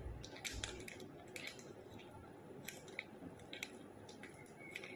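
Faint crinkling and rustling of a small plastic packet being handled and opened over a glass, with a few scattered soft clicks.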